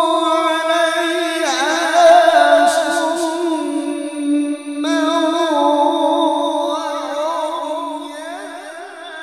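A male qari reciting the Quran in melodic tilawah style, holding long ornamented notes with fast wavering turns. The voice dips briefly about four and a half seconds in, then carries on and trails off more quietly toward the end.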